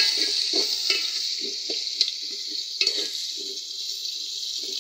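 Chopped onions sizzling in hot oil in an aluminium pot, stirred with a long metal spoon that scrapes the pot in short, irregular strokes, with a few sharper metal clinks.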